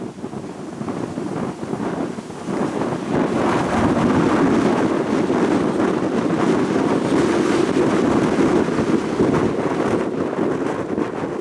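Strong wind buffeting the microphone: a loud, rushing rumble that swells into a stronger gust a few seconds in and keeps blowing.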